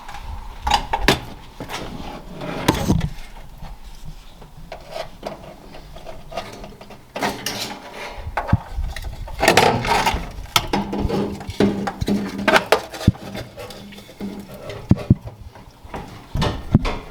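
Irregular clatter of knocks, clicks and scrapes as the fuel pump assembly and its parts are handled and fitted back into place.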